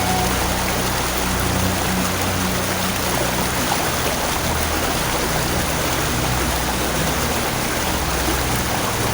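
Steady rushing water, like a stream, with low background music held underneath.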